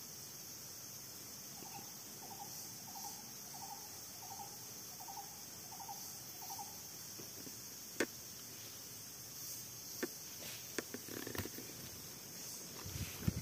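Steady high insect buzzing of a tropical forest, with an animal call repeated about seven times, roughly one note every two-thirds of a second. A sharp click comes about eight seconds in, followed by a few lighter clicks and knocks near the end.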